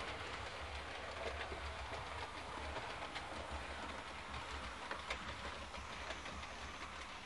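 Roco model E626 electric locomotive and its coaches running along model track: a low motor hum with the wheels clicking over the rail joints, getting a little quieter near the end.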